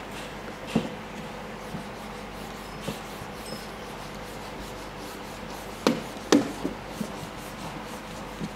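A whiteboard eraser wiping across a whiteboard, broken by a few sharp knocks against the board, the two loudest close together about six seconds in.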